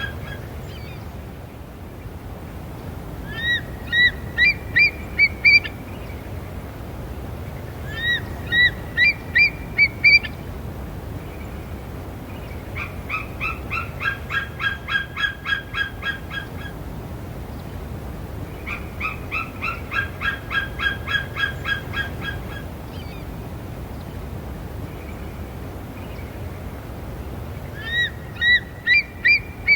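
Eagle calling in repeated series of short, high piping notes: bursts of five or six notes that climb in pitch and loudness, alternating with longer even trains of about four notes a second, with pauses of a few seconds between series.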